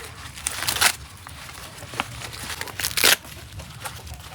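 Dry rustling and tearing in short bursts, the loudest about a second in and about three seconds in, with a sharp click about two seconds in.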